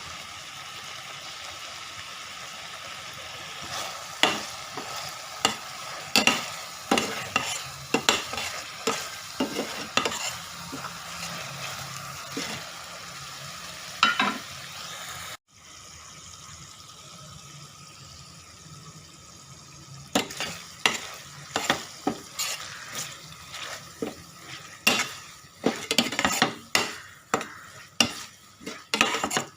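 Food sizzling in hot oil in a pan while a spoon stirs it, knocking and scraping against the pan in irregular clicks. The sound cuts off abruptly about halfway through, then resumes with a quieter sizzle and more frequent knocks of the spoon.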